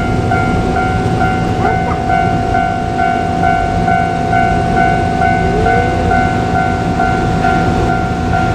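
Japanese level-crossing warning bell ringing in a steady fast repeat, about two to three rings a second, over the running of a JR Kyushu KiHa 200 diesel railcar at the crossing.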